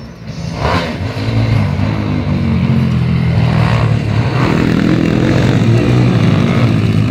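Pit bike engines revving on a dirt motocross track as riders come closer, the sound growing louder over the first two seconds and then staying loud with a wavering pitch as a bike passes close by.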